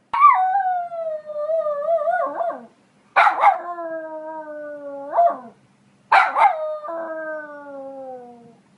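Poodle howling: three long howls, each opening with a sharp bark and then drawn out while sliding slowly down in pitch.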